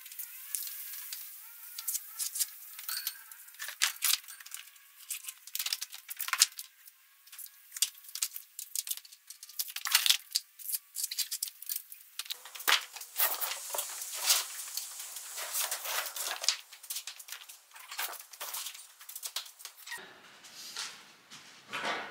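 Irregular clicks, rattles and scuffs of hands working a metal tape measure over rubber stable mats, busier and fuller from about halfway through.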